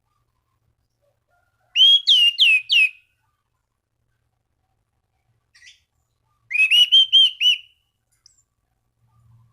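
An anis cendana thrush singing loud, clear whistled notes in two short phrases: about four quick down-slurred notes about 2 s in, then a run of about six up-and-down notes a second later than the middle of the clip.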